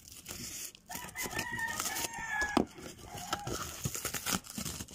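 Scissors snipping and tearing through a cardboard box, with short crackling cuts. A rooster crows once in the background about a second in, a long call lasting about a second and a half.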